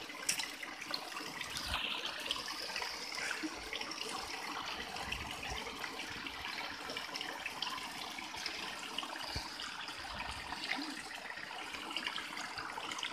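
Water running from a row of cow-head spouts into a shallow stone channel: a steady trickling and splashing.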